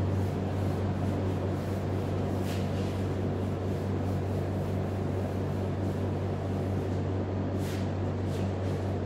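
Chalkboard duster wiping chalk off a blackboard, a soft steady rubbing, over a constant low hum.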